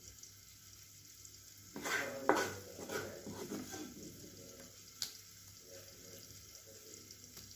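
A spatula scraping and scooping thick fried brinjal from a pan, with a few metal scrapes and clinks about two to three seconds in and one sharp clink at five seconds.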